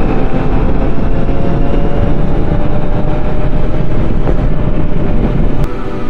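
Motorcycle under way: the engine runs steadily under a heavy, continuous wind rumble on the microphone.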